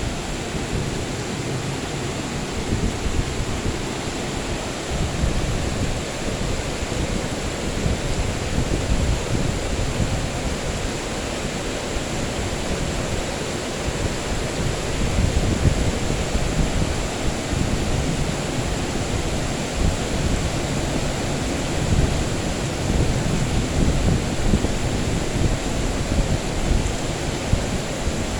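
Steady heavy rain hiss with a low, rolling rumble of distant thunder underneath, swelling a little in the middle and again near the end.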